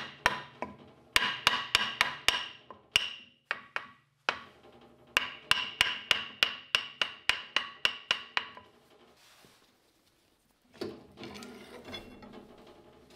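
A hammer strikes a wooden block held against the Weiler LZD 220 lathe, with a metallic ring after each blow. The blows come in groups, the longest a quick run of about four a second ending about eight and a half seconds in. Near the end there is a rougher rattling and scraping of metal being handled.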